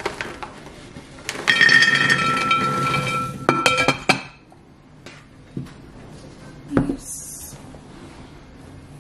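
Ceramic clinking: a ringing scrape for about two seconds, then three quick clinks, followed later by a couple of softer knocks.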